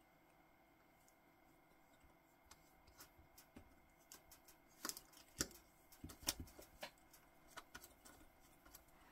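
Light metallic clicks and taps as a stainless steel watch bracelet is handled and seated in a small screw-type link pin removal tool, with the loudest clicks clustered a little past halfway.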